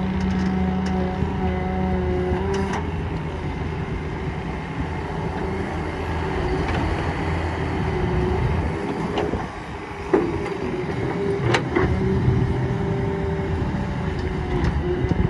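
Solar 130 hydraulic excavator's diesel engine running steadily under digging load, with a held hydraulic whine. The engine note dips briefly about two-thirds of the way through, followed by a few sharp knocks.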